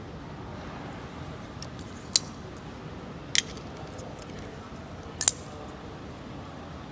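Blade of a small bearing-pivot folding knife flicked open and snapped shut, its detent ball catching: a few sharp metallic clicks. The loudest comes about two seconds in, another a second later, and a quick double click a little after five seconds.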